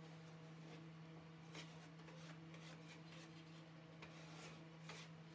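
Faint, scattered scrapes of a drywall trowel on the hawk and across the ceiling as a skip-trowel texture goes on, over a steady low hum.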